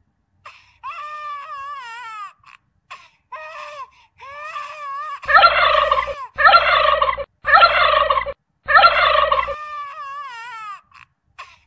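Baby macaque crying in distress after being left by its mother: a string of wavering, high whimpering calls, broken about halfway by four loud, harsh screams in a row.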